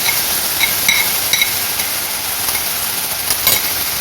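Boiled fenugreek leaves sizzling as they fry in hot oil in a kadhai, with a metal spoon clinking against the pan three times about a second in and once more near the end.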